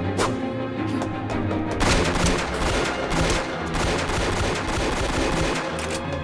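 Rapid pistol fire, a long string of shots in quick succession starting about two seconds in, over background music.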